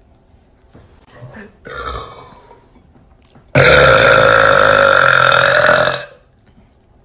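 A person burping: a short burp about two seconds in, then a long, very loud burp of about two and a half seconds that ends abruptly.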